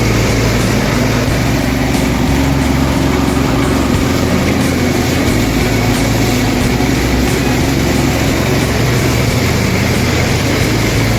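Rebuilt Honda GX340 single-cylinder four-stroke engine running steadily at a constant speed.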